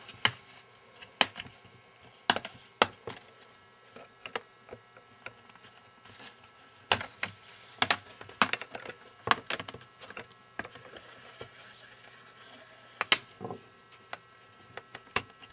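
Plastic screen bezel of an HP Chromebook 14 being pried off by hand, snapping loose from the lid in a series of sharp, irregular clicks and cracks.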